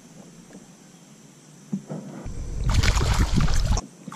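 Handling noise from a camera being moved on a kayak: a knock, then about a second and a half of loud rumbling and rustling that cuts off suddenly.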